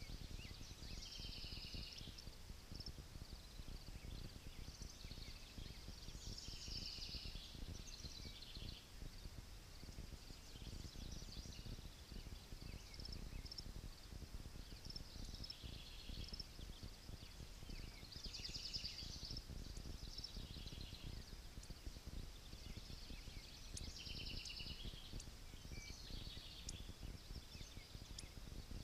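A songbird singing short, high, trilled phrases about a second long, repeated every few seconds, over a steady low rumble.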